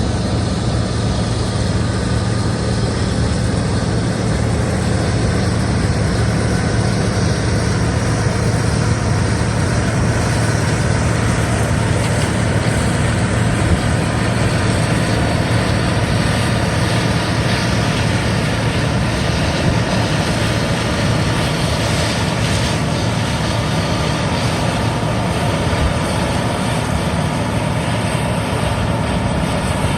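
John Deere combine harvester running steadily under load while harvesting soybeans: a constant, loud engine and machinery drone with a low, even hum.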